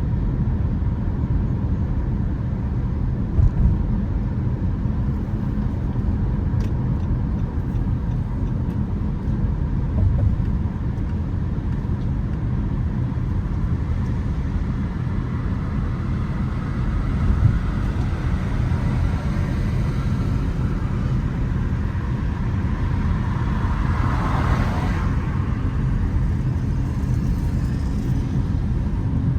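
Steady low rumble of car and road traffic noise. A passing vehicle swells and fades about 24 seconds in.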